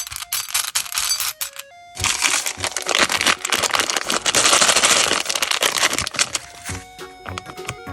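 Plastic candy packaging crinkling and crackling as it is handled and opened, densest through the middle of the stretch, over background music with held notes.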